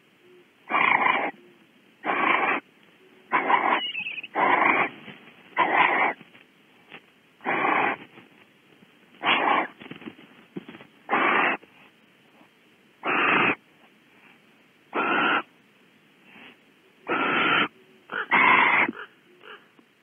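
Barn owl giving harsh hissing, snore-like calls, about a dozen half-second hisses spaced one to two seconds apart, typical of barn owl begging calls.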